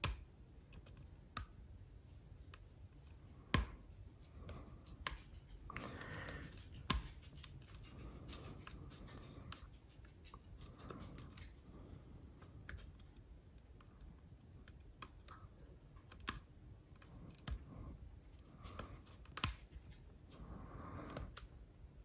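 Metal lock pick scratching and clicking in the keyway of an Assa Ruko lock as its pins are picked under tension: faint, irregular small clicks and scrapes, with a few sharper ticks scattered through.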